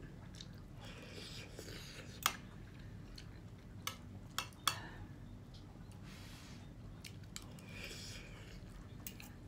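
Eating at the table: chewing, with a metal spoon and fork clicking sharply against a plate four times, about a second apart, in the middle. A few short breathy noises come in between.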